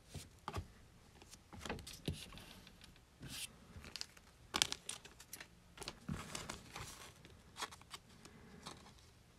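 Faint, scattered crinkling and rustling of a foil trading-card pack wrapper and cards being handled, with small taps and clicks.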